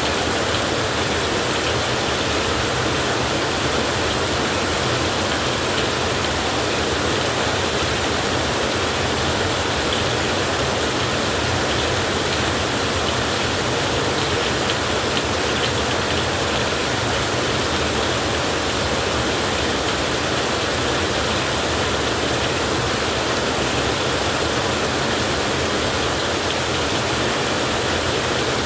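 Heavy rain falling steadily, a dense even hiss with no breaks or thunderclaps.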